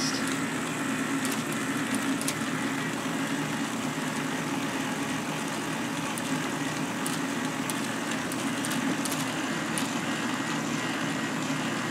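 K'nex motor and plastic gear train running steadily, driving the robot's program tape chain at its faster speed without grinding the gears: a continuous whir with faint scattered plastic clicks.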